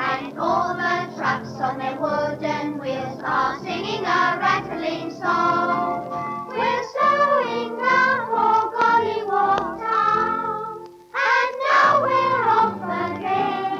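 A children's song, sung with musical accompaniment, on a 1953 gramophone record; the singing breaks off briefly about eleven seconds in, then carries on.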